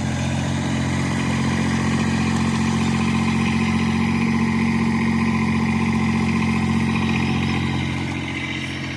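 Small Yanmar diesel engine of a 15-horsepower mini skid steer loader running steadily. It is a little louder through the middle as the machine is driven forward and back, and eases off near the end.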